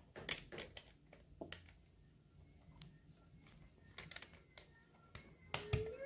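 Light, irregular clicks and taps of Lego plastic pieces being handled and pressed together, about a dozen scattered through.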